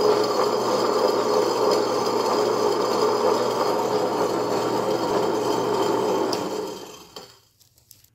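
Ultra Perfect S wet grinder running empty: its two granite stones roll dry in the stainless drum, giving a steady grinding rub over the motor's hum. The sound dies away about seven seconds in.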